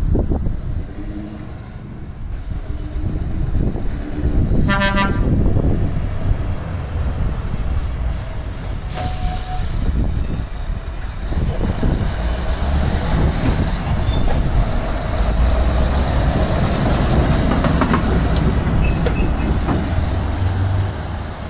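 Heavy truck engine running steadily, with a short horn toot about five seconds in and a brief hiss of air about nine seconds in.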